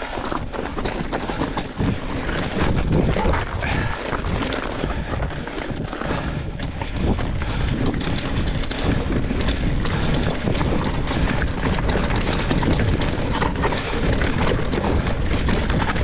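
Mountain bike riding down a loose, rocky trail: tyres crunching over gravel and rock, with the bike rattling and clicking over the bumps and wind on the microphone.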